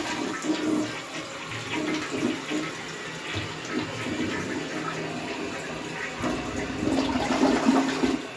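1987 Kilgore Aladdin 3.5-gallon-per-flush toilet flushing: a steady rush of water that swells louder about seven seconds in, then drops away at the end.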